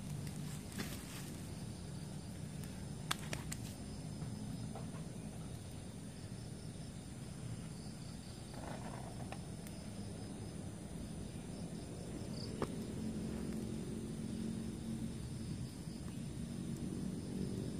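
Night insects chirring steadily in the background, with a few sharp clicks and knocks as a small metal camping kettle is handled and hung over campfire embers.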